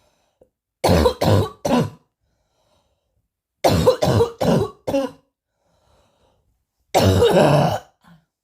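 A person coughing hard in three fits: three coughs about a second in, four quick coughs in the middle, and one longer cough near the end.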